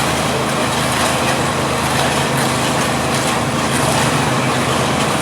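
A heavy engine running steadily at an even speed, a constant low hum under broad mechanical noise.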